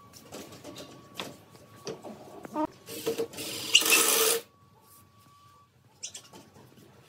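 Cordless driver running as it drives a screw into pallet wood: one run of about a second and a half near the middle, with a few light wooden knocks before it.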